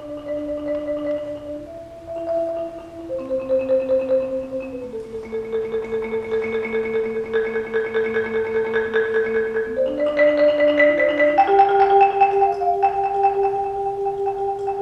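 Marimba played with yarn mallets, rolling sustained two-note intervals that shift to new pitches every second or two; it grows louder about ten seconds in.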